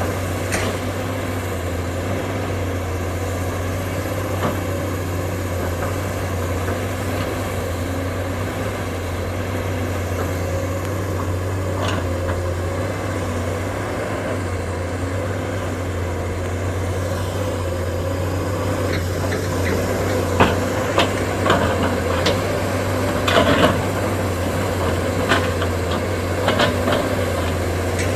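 SANY hydraulic excavator's diesel engine running steadily at a low drone. In the second half it is joined by a scatter of sharp knocks and clunks.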